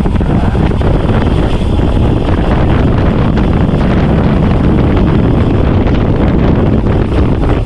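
Wind buffeting the microphone of a road cyclist descending fast: a loud, steady rush, heaviest in the low end.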